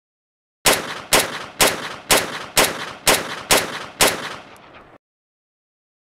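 Desert Eagle pistol firing eight shots in quick succession, about two a second, each with a short echoing tail.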